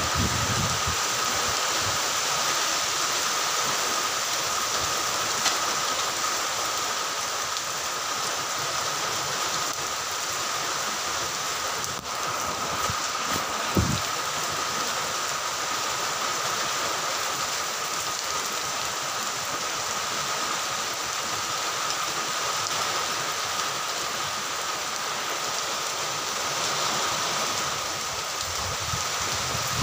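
Steady rain falling in a light shower, an even hiss, with a faint steady high tone under it and one brief thump about halfway through.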